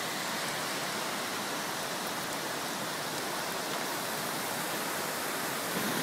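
Steady rushing of water from a flash flood, an even noise without breaks.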